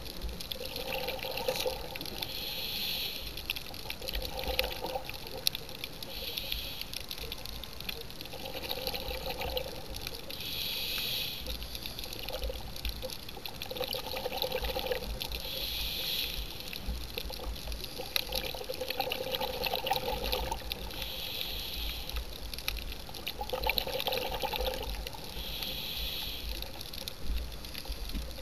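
Scuba diver breathing through a regulator, heard underwater: bubbling exhalations alternate with a higher hiss on each breath in, about one breath every five seconds.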